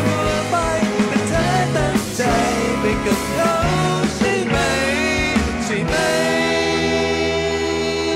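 Male singer singing a Thai ballad live over band accompaniment with drums; about six seconds in, a long note is held.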